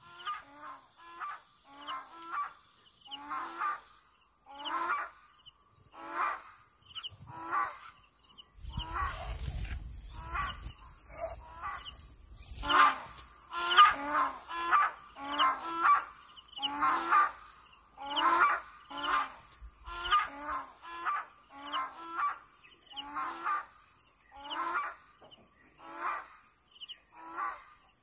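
An animal calling over and over in short calls, one or two a second, with a steady high hiss behind them. There is a brief low rumble about nine seconds in.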